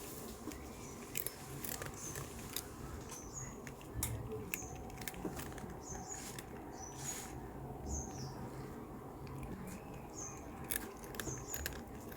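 A cat crunching and chewing a hard, crisp murukku snack, in irregular sharp bites. Short high bird chirps sound now and then in the background.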